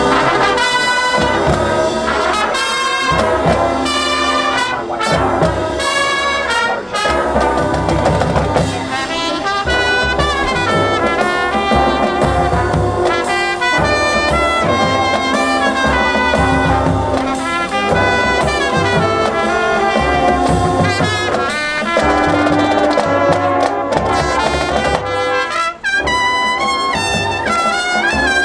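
Drum and bugle corps playing a loud piece: massed bugles and brass horns in several parts, with bass drums beating underneath.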